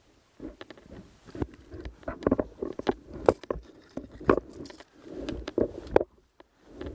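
Footsteps and rustling of a person walking on rough ground: irregular thuds and crunches, roughly one a second.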